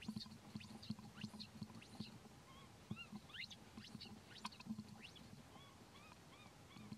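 Baby macaque giving faint, short high-pitched squeaks and chirping cries, with one rising squeal about three seconds in and a run of evenly repeated short chirps near the end.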